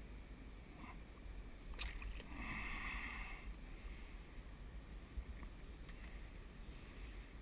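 Water splashing as a hooked perch is pulled from the surface, a sharp splash about two seconds in followed by about a second of splashing, over a low steady rumble.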